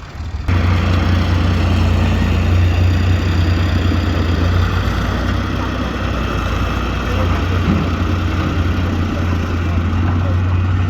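Diesel engine of a Hitachi EX100WD wheeled excavator running steadily with a low drone, cutting in abruptly about half a second in.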